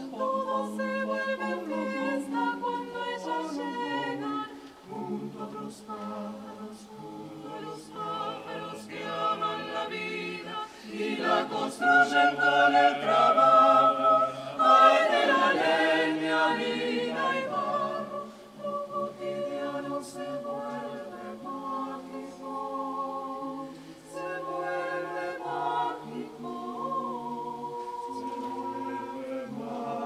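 Mixed choir of men and women singing a cappella in held chords, swelling to a louder passage about a third of the way in and easing back to a softer level after it.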